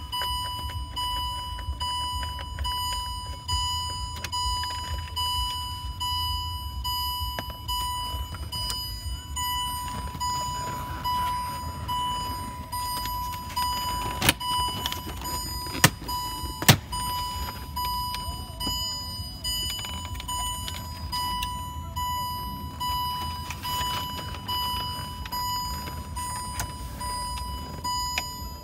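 A Range Rover Sport's warning chime beeping over and over at an even pace, over a steady low rumble from the car. A few sharp clicks about halfway through as the plastic dash trim around the instrument cluster is pried and pulled from its clips with a screwdriver.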